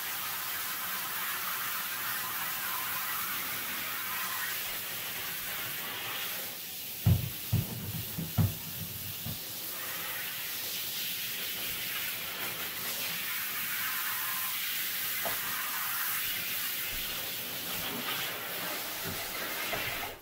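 Handheld shower spraying water onto a dog in a bathtub, a steady hiss that stops suddenly near the end as the water is shut off. A few dull knocks about seven to eight seconds in.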